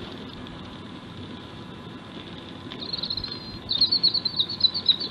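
A small songbird singing a rapid, high-pitched twittering phrase, starting about three seconds in and growing louder near the end.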